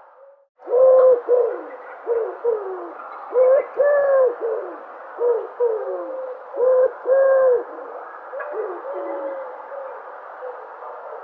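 Dove cooing: a run of low coos, some held level and some falling in pitch, repeated in short phrases over a steady background hiss, starting about half a second in after a brief silence.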